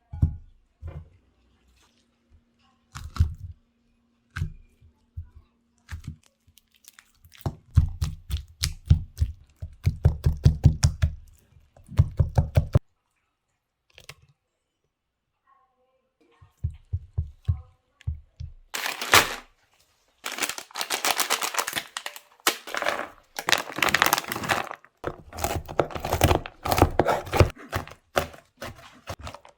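Kitchen food-preparation handling sounds: a string of taps and knocks, some in quick runs. After a short lull, a long spell of dense crackling and crinkling begins past the middle.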